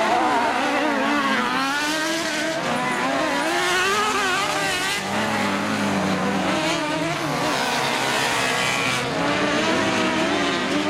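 Several autocross buggies racing on a dirt track, their engines revving up and down together in wavering, overlapping notes.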